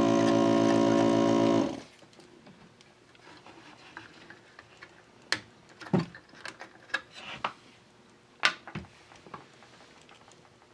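Electric desoldering gun's vacuum pump buzzing steadily, drawing molten solder out of a through-hole joint, and cutting off sharply about a second and a half in. Scattered light clicks and taps follow.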